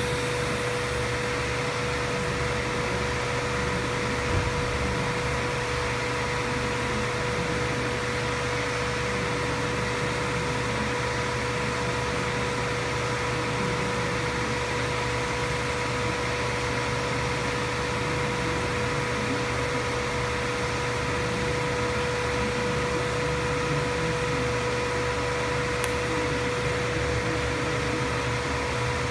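Steady fan-like machine hum with a constant mid-pitched whine during TIG welding of stainless pipe, with one soft thump about four seconds in and a faint tick near the end.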